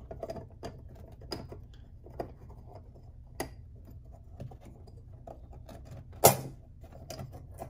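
Small metallic clicks and taps of parts being handled as the springs are worked off a golf cart motor's brush holder, with one sharp, much louder click a little after six seconds in.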